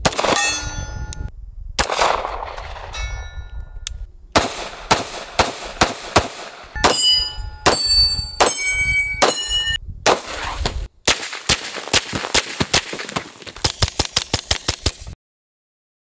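Pistol shots with hits ringing on steel targets, in short edited strings. A fast string of about three shots a second comes near the end, then the sound cuts off suddenly.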